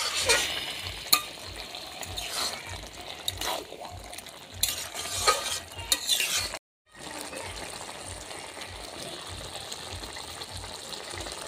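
Spatula stirring and scraping diced bottle gourd and shrimp around a metal pan while the curry sizzles, with several scraping strokes. After a brief cut about two-thirds in, only a steady sizzle remains.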